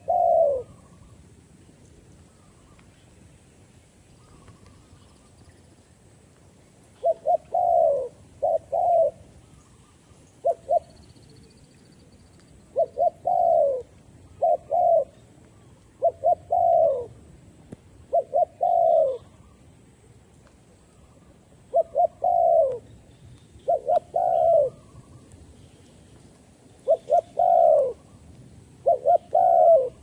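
Spotted dove cooing: phrases of two or three short coos, each note dropping in pitch, repeated every few seconds after a pause near the start.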